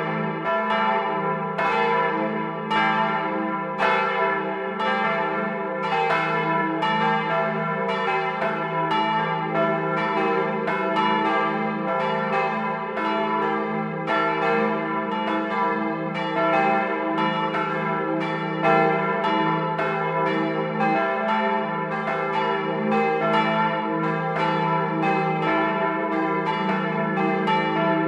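Church bells cast by the Otto foundry of Hemelingen in 1951, swung by an electric ringing system and ringing together, heard close up inside the bell tower. Their strokes overlap at about one to two a second over a continuous wash of ringing tones.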